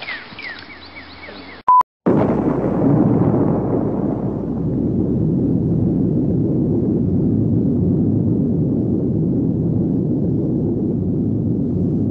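A short beep, then a nuclear-blast explosion sound effect: a sudden loud blast that settles into a long, deep rumble lasting about ten seconds, its hiss fading as it goes.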